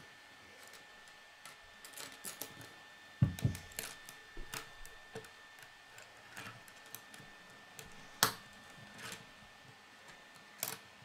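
Plastic K'nex rods and connectors clicking and tapping together and on a wooden tabletop as pieces are fitted. There are scattered small clicks, with sharper snaps about three and eight seconds in.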